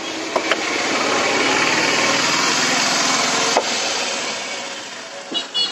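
A motor vehicle passing close by: engine noise swells over a second or so, holds, then fades away. A few light clinks of glass sound near the start and once more about three and a half seconds in.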